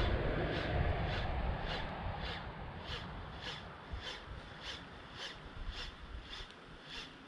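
Baitcasting reel being cranked in a steady retrieve, a short high tick nearly twice a second, over low wind and handling rumble that fades away.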